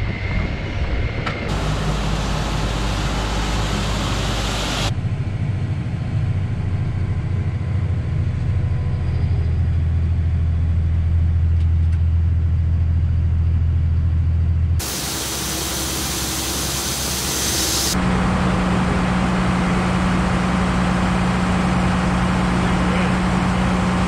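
Tractor engines running steadily over a series of short clips, the drone changing abruptly at each cut: a loader tractor driving over the cracked corn to pack the pit, then a tractor powering a grain cart's unloading auger as corn pours into a semi trailer.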